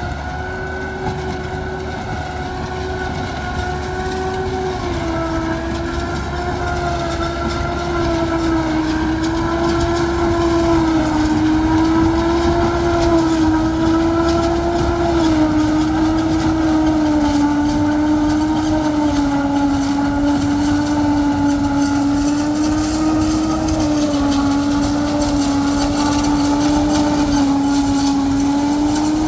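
Tractor-driven corn silage harvester running steadily, its cutterhead and blower giving a continuous whine over the tractor's engine rumble. The whine wavers and sags a little in pitch as the load changes, and the sound grows louder over the first ten seconds.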